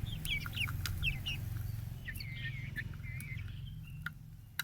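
Chickens calling with many short, high chirps over a low steady hum, with a couple of sharp clicks near the end.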